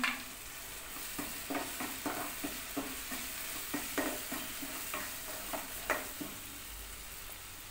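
Steel spoon stirring spice powders into a thick onion-tomato masala paste frying in oil in a coated kadhai: a steady sizzle under short scraping strokes of the spoon against the pan, about twice a second, which stop about six seconds in. The paste has cooked to the point of releasing its oil.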